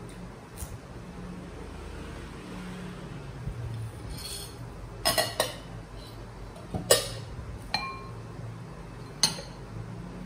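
Ceramic bowl, saucer lid and spoon clinking against each other and the table as the bowl is covered and set down. There are about six sharp clinks, the loudest near the middle and one ringing briefly, over a steady low hum.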